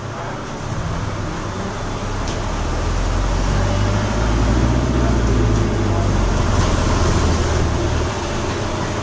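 Hybrid double-deck bus pulling away, heard from inside the passenger saloon. Its low drive drone builds over several seconds, then eases off a little near the end.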